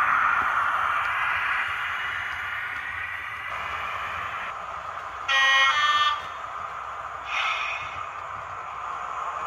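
Sound-fitted OO gauge model HST's running sound fading as the train moves away, then a loud two-tone horn blast from its sound decoder about five seconds in, followed by a shorter, fainter horn blast about two seconds later.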